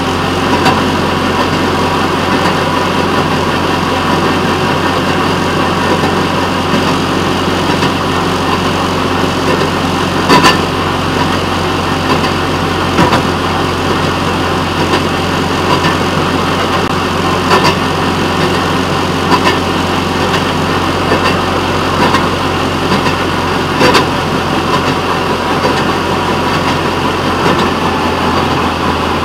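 Railroad motorcar (speeder) engine running steadily as the car rolls along the track. Sharp clicks come every few seconds as the wheels cross rail joints.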